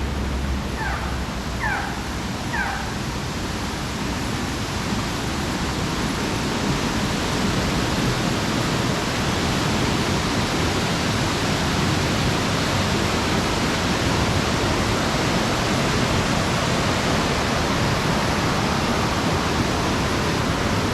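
Steady rushing water of a waterfall, growing a little louder. Three short falling calls sound over it about one to three seconds in.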